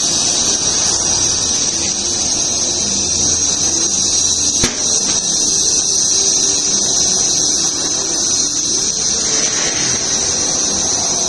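Tire-changing shop equipment running with a steady, loud, high-pitched whine and hiss, with a sharp click a little under five seconds in.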